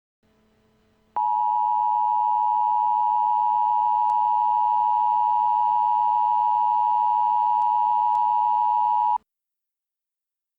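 Emergency Alert System attention signal: a loud, steady two-tone alarm sounding for about eight seconds and then cutting off suddenly. It announces that an emergency alert message, here a winter storm warning, is about to follow. A faint hiss comes just before it.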